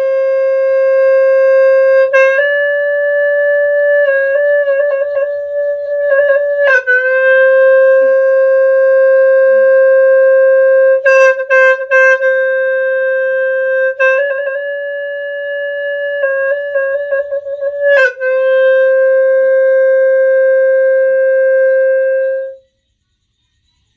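Buffalo horn (Cambodian snaeng) blown in long held notes on one main pitch, stepping slightly higher and wavering in places, with several short breaks between notes. It stops abruptly about 22 seconds in.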